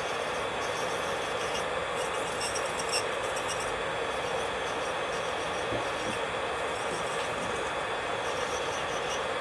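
Electric nail drill (e-file) running at a steady pitch, its bit grinding against the nail to file off gel.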